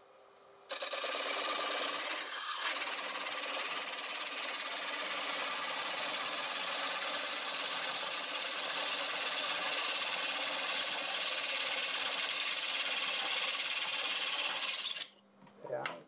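Burr-edged ring-cutting blade, held in a wooden guide block set at 55 degrees, scraping an angled groove into the face of a wooden disc spinning on a lathe: a steady hissing scrape that starts about a second in, dips briefly about two seconds in, and cuts off suddenly near the end. Before the blade bites, only the lathe is heard running faintly.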